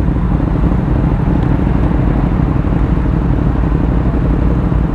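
Motorcycle engine running at a steady pace with a continuous rush of road and wind noise, holding a constant low drone without revving up or down.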